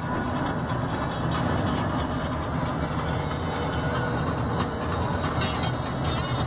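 Steady road and tyre noise with a low engine hum, heard inside the cabin of an SUV cruising at highway speed.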